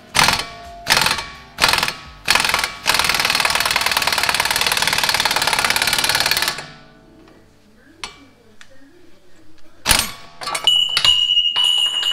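Pneumatic impact wrench driving a ball joint press screw to force a worn lower ball joint out of its control arm: four short bursts, then a steady hammering run of about four seconds. Near the end comes a single sharp metallic bang followed by a high ringing tone.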